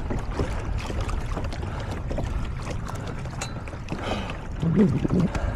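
Water washing around a pedal kayak under way, with wind buffeting the microphone; a brief louder sound rises near the end.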